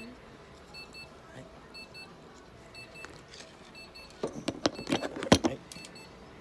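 A faint electronic double beep from clinic equipment repeats about once a second. From about four seconds in there is a flurry of clicks, knocks and rustles as a cat is handled with a toothbrush on a steel exam table, the loudest knock just past five seconds.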